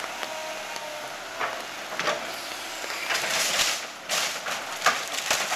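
Caterpillar excavator demolishing a wood-frame house: timber splintering and debris crashing in several bursts, with a sharp crack near the end, over a steady hiss.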